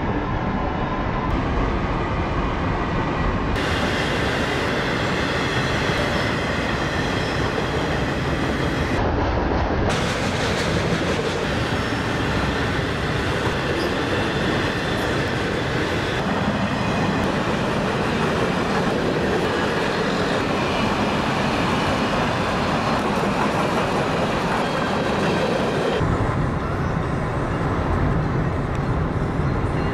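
Freight train of autorack cars rolling past, a steady noise of steel wheels on rails. The sound changes abruptly several times at cuts, and near the end turns to a duller rumble with less treble.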